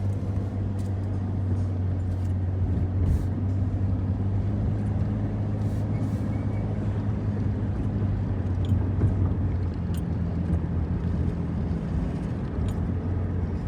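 A car running steadily: a low, even engine hum over road noise.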